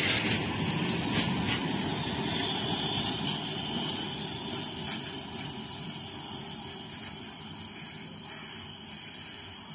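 Freight train's wagons and brake van rumbling along the rails, fading steadily as the end of the train draws away, with a couple of faint clicks of wheels over the rails in the first two seconds.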